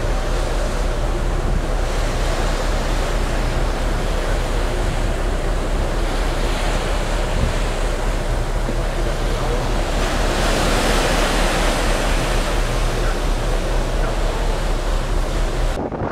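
Sea water rushing and churning along a large ferry's hull, mixed with wind buffeting the microphone, over a steady low hum. The rush swells louder about ten seconds in, and the sound changes abruptly near the end.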